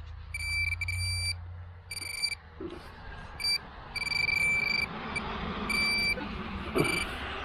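Metal detector tone beeping in short and longer bursts at one steady high pitch over the target in the dig hole, with scraping of digging in the soil from about halfway through.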